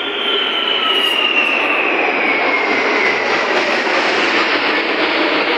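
Large military aircraft flying low overhead: a loud, steady engine roar with a whine that falls in pitch as it passes.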